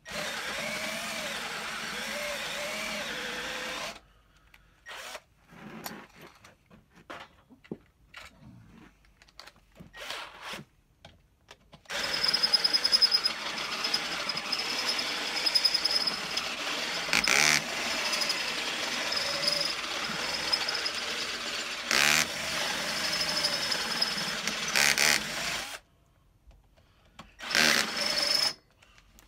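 Cordless drill boring into the metal bottom bracket shell of a bicycle frame. It runs steadily for a few seconds, then in a string of short trigger bursts, then in one long steady run of about fourteen seconds with a high whine. After a short pause near the end comes one more brief burst.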